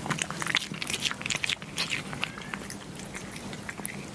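Kittens chewing meat: quick, irregular clicking bites, busiest in the first couple of seconds.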